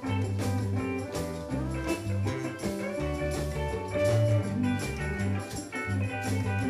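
Live band playing a reggae groove instrumentally: electric guitars and drum kit over a steady bass line, with no singing.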